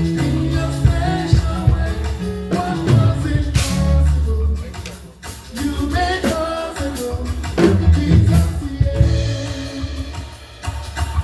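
Live church band playing an instrumental stretch of a worship song: drum kit, bass and sustained keyboard chords. Two cymbal crashes ring out, about a third of the way in and again past the middle.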